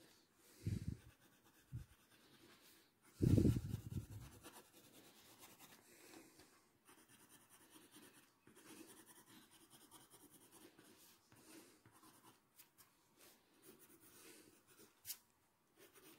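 Graphite pencil strokes scratching on paper as fine details of a drawing are shaded in: a faint run of short scratchy strokes. A few low, dull bumps come in the first few seconds, the loudest about three seconds in.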